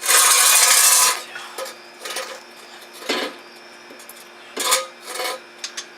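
A loud burst of hissing noise lasting about a second, then scattered short metallic clinks and scrapes of tools and parts being handled during suspension work.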